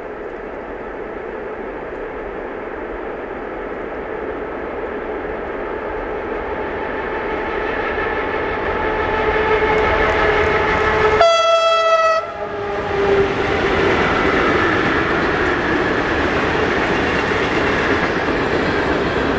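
Electric-hauled freight train of tank wagons approaching and passing, its rumble growing louder. The locomotive gives one horn blast of about a second, a little past the middle, then the wagons roll by on the rails.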